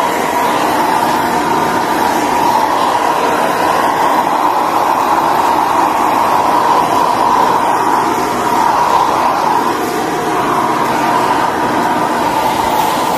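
Handheld electric hair dryer running steadily, a continuous rushing blow with a mid-pitched whine, blowing on a wet cat's fur.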